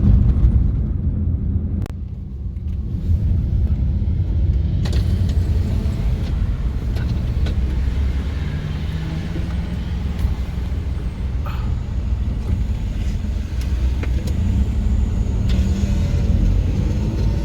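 Steady low rumble of a car driving at highway speed, the tyre and engine noise heard from inside the cabin.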